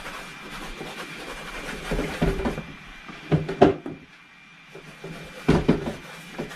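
A rag dabbed and pressed against a painting on an easel, giving a few sharp knocks and soft rubbing, the loudest about halfway through and again near the end. The rag is lifting off excess paint as it blots in pink flower shapes.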